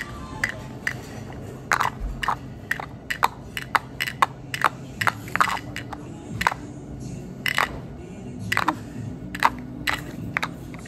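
Plastic toy figures knocked and set down on a wooden tabletop: an irregular run of sharp clicks and taps, about two a second, over a low background murmur.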